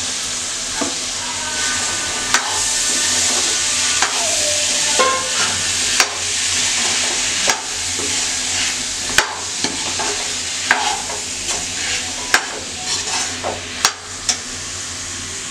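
Boiled chickpeas sizzling in spiced masala in a metal kadai as they are stirred with a spoon, which clinks and scrapes against the pan about every second and a half over a steady frying hiss.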